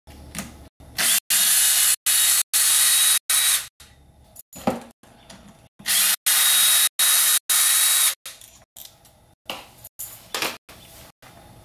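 Cordless drill-driver spinning out the clutch pressure-plate bolts, in two runs of about two and a half seconds each, with a single knock between them.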